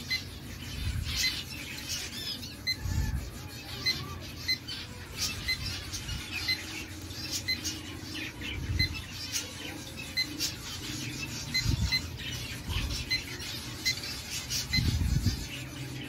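Small cage birds in an aviary chirping and squawking in short, irregular calls, with a faint evenly spaced high pip about one and a half times a second and a few low thumps.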